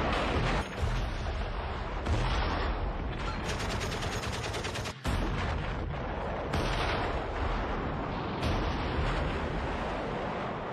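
Battle soundtrack of gunfire and blasts over a continuous rumble, with several sudden loud reports. A rapid machine-gun burst of about ten rounds a second comes in about three and a half seconds in and cuts off abruptly near five seconds.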